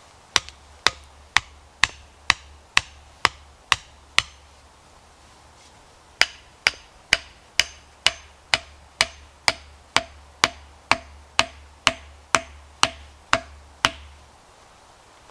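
Hammer driving a wooden stake into the ground. Sharp knocks come at about two a second: a run of about nine, a pause of about two seconds, then about seventeen more.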